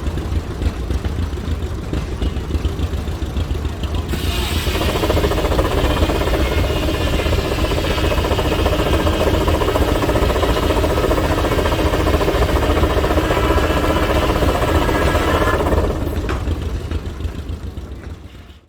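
Sawmill blade cutting through a log for about twelve seconds, powered by a 1911 Avery 18 hp steam engine working under load, over a steady low rumble of the running machinery. The cutting noise starts about four seconds in and dies away near the end, and the sound then fades out.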